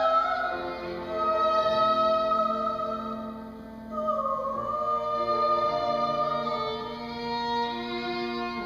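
Soprano singing long held notes in classical style with violin and cello accompaniment. About four seconds in, the melody moves down to a new sustained note.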